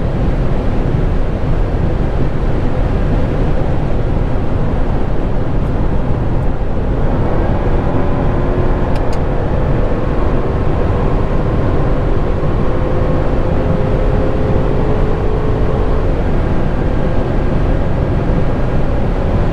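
Cabin noise of a Jaguar F-Type R's supercharged V8 at very high Autobahn speed, a steady loud rush of wind and tyre roar with the engine underneath. About halfway through, a faint engine tone comes up and rises slowly as the car picks up speed again.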